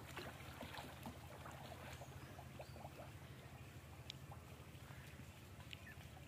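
Near silence: a faint steady low hum with a few faint scattered ticks.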